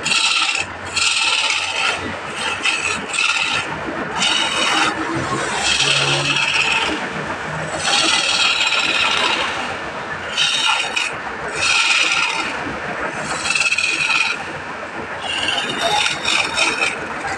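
Hand-held turning tool cutting a spinning wooden spindle on a wood lathe, a scraping sound in repeated passes a second or so long with short breaks between as shavings fly off.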